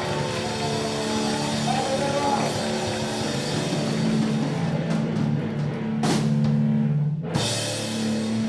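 Live amateur rock band playing, with distorted electric guitars, bass and a drum kit. About six seconds in come full-band hits, a brief stop and a final strike into a held chord.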